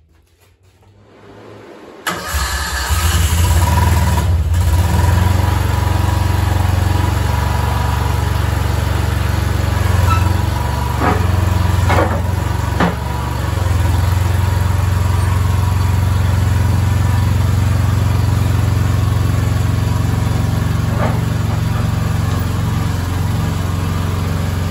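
Boxer 427 mini skid steer's gasoline engine, with a freshly cleaned carburetor and a new muffler, starting about two seconds in and then running steadily at a low drone.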